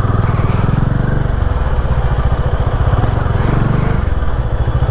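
Bajaj Dominar 400's single-cylinder engine running at low revs, a steady rapid thumping, as the motorcycle moves slowly through heavy traffic.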